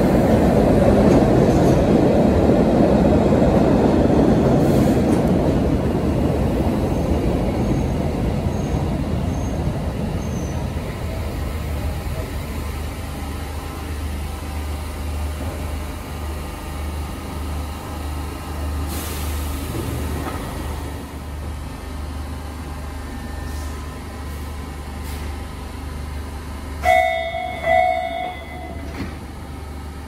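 MBTA Red Line subway train pulling in, its running noise fading as it slows to a stop, then the standing train's steady low hum. Two short, loud tones sound near the end.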